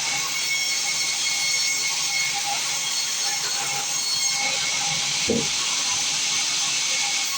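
Sawmill band saw running with a steady high hiss and a thin whine, with a brief low knock about five seconds in.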